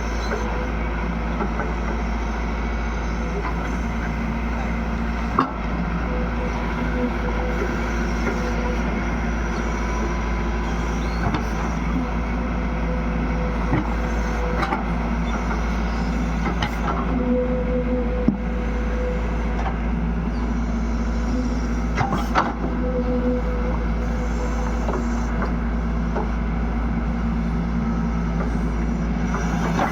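Excavator's diesel engine running steadily under working load, with a hum that rises and falls a little. A few sharp knocks punctuate it.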